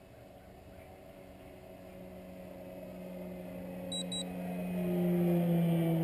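Motor and propeller of an RC Extra 330SC aerobatic model plane in flight, a steady drone growing louder as it comes overhead and loudest near the end. Two short electronic beeps come about four seconds in.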